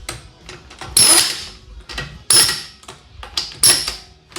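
Impact wrench running wheel nuts onto a car's hub in three short bursts about 1.3 s apart, each a loud rattling whine, with small clicks between.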